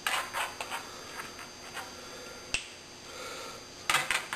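Gloved hands winding stiff stainless steel wire tightly around a notched plexiglass electrolyzer core: bursts of rustling and scraping with sharp clicks, one clear click about two and a half seconds in.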